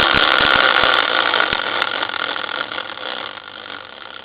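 Spinning prize wheel winding down: a loud buzzing rattle whose clicks grow sparser as it slows, fading away near the end.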